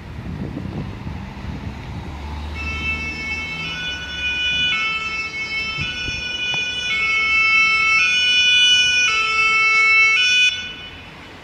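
French fire brigade rescue ambulance's two-tone siren, switching between a high and a low note about once a second and growing louder as it approaches, over the rumble of street traffic. It cuts off suddenly near the end.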